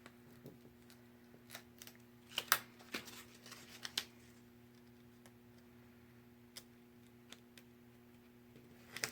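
Cardstock and vinyl craft pieces being handled: a scattering of soft taps and rustles, most of them in the first four seconds and a few later, over a faint steady hum.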